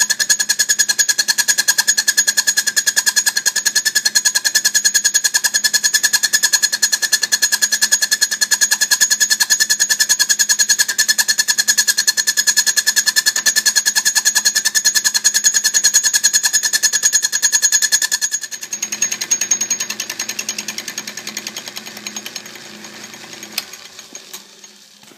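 Home-made fly cutter spinning in the chuck of an Atlas metal lathe, taking an interrupted facing cut across a quarter-inch steel strap-iron bracket: a rapid, even clatter with a steady high ring. About 18 seconds in the cut stops and the sound drops to a quieter, lower hum that fades away. The cutter was ground without the intended rake, yet it cuts and leaves a pretty nice finish.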